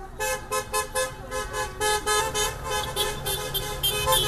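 Car horns honking in quick short toots, about three or four a second, as drivers greet someone by the roadside. A low steady tone joins in about halfway through.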